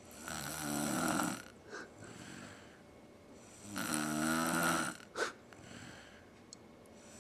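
A sleeping woman snoring loudly, two long snores about three and a half seconds apart with a quieter breath between them. A brief sharp click comes just after the second snore.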